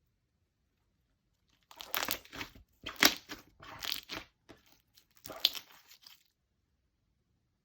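Clear slime filled with foam beads being squished and pressed by hand, crunching and popping in several irregular bursts over about four seconds.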